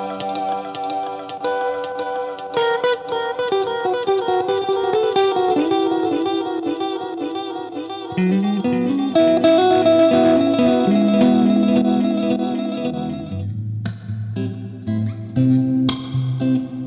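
Electric guitar played through a delay and reverb pedal, notes ringing on with long echoing tails, with sparser picked notes from about 13 seconds in.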